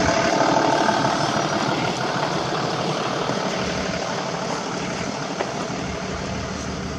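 Street traffic noise: a passing motor vehicle's steady rumble, slowly fading.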